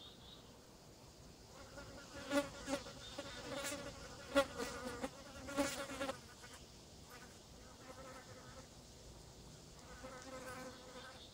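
Green bottle flies buzzing in flight close by. The buzz swells loudest through the middle, with a few sharp ticks, then drops to a softer buzz that comes and goes.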